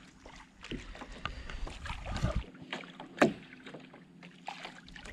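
Small skiff sitting on calm water, with water lapping at the hull and scattered light knocks and clicks against the boat. One sharp knock comes about three seconds in.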